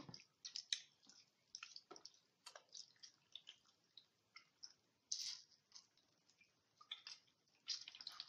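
Faint, irregular soft clicks and squishes of a wet, freshly wrung-out slab of raw pork belly being handled and laid out on a cotton dish towel.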